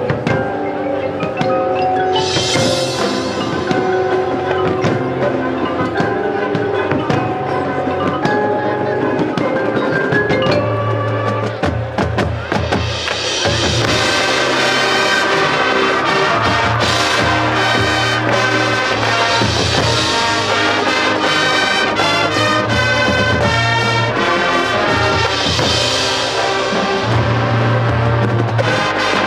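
High school marching band playing its field show: mallet percussion (marimba, glockenspiel, chimes) carries the music, with bright shimmering swells, and about twelve seconds in a fuller, louder texture with held low notes comes in.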